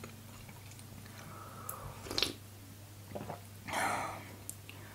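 Quiet mouth sounds of sipping tea from a mug: a sharp mouth click about two seconds in, then a short slurp just before four seconds in.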